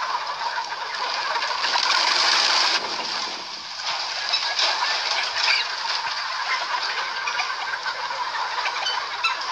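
Din of a large flock of desi chickens: many overlapping clucks and calls over a dense rustling noise of the birds moving. The noise swells for about a second around two seconds in.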